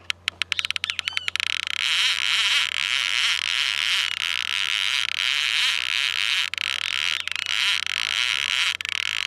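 Fishing reel's drag clicking rapidly, speeding up about a second in into a continuous buzz, as a hooked tambaqui runs and strips line from the reel.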